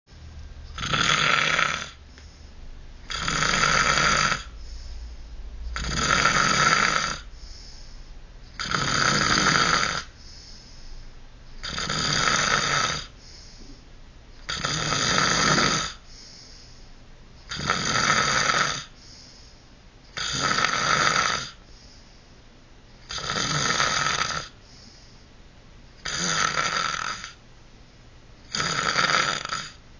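Loud, regular snoring: one snore about every three seconds, each lasting about a second, with a fainter breath between snores.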